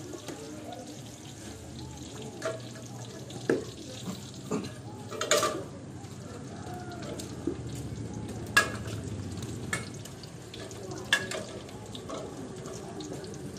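Busy market ambience: a steady wash of background noise and faint distant voices, broken by several sharp knocks and clatters, the loudest about five and eight and a half seconds in.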